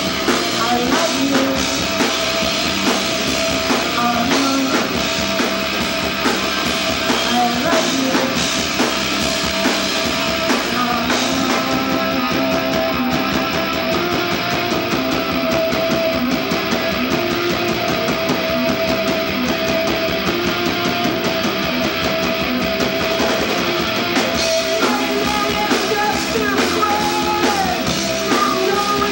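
Live rock band playing loud: distorted electric guitar, bass and drum kit, with a singer on the microphone. The high cymbal hiss thins out for a stretch in the middle and comes back near the end.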